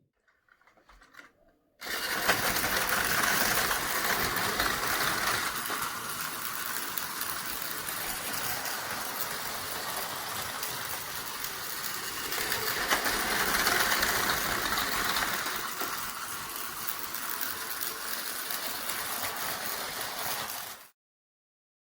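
Two battery-powered Tomy Plarail toy trains running on plastic track, their small motors whirring and wheels rattling over the track joints. The sound starts suddenly about two seconds in, grows louder twice as the trains come near, and cuts off abruptly near the end.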